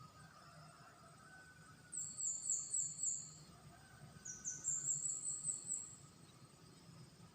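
A bird singing two quick runs of high, down-slurred whistled notes, about two seconds in and again about four seconds in, over a faint steady background hum.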